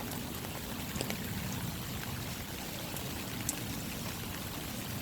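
Rainwater pouring and running in a steady rush, with a few scattered drips.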